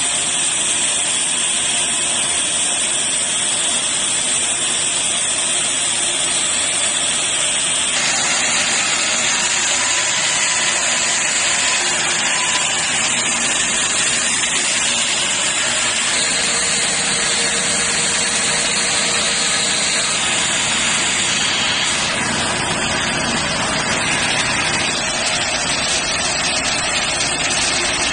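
Aluminium rod breakdown wire-drawing machinery running: a steady loud mechanical drone under a strong hiss, its tone shifting abruptly a few times.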